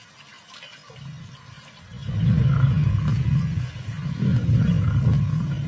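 Lions growling low over a buffalo kill. The growling starts about two seconds in and runs in long bouts, with a short dip a little past the middle.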